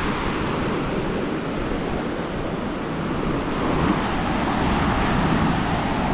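Indian Ocean surf breaking and washing up a sandy beach in a steady wash, with wind rumbling on the microphone.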